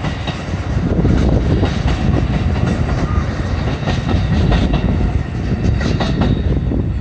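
Amtrak bilevel Superliner passenger cars rolling past: a steady rumble of wheels on rail with scattered sharp clicks from the track. The last car goes by near the end.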